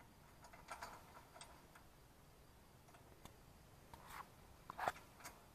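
Faint metallic clicks and clinks of a chain and locking pins being handled at a wheel hay rake's hitch: a few scattered ticks, the loudest cluster about four to five seconds in.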